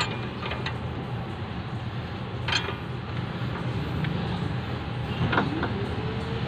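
A few light metallic clicks and clinks from hand tools and the circlip and hub parts being handled, over a steady background hum. Near the end a tone rises and then holds steady.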